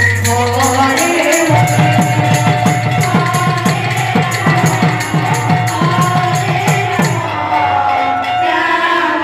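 Live devotional kirtan music: rapid hand-drum strokes that fall in pitch and steady jingling beats, about four a second, over a sustained held melody and a singing voice. A little after seven seconds in, the drumming and jingling stop, leaving the held tones and the voice.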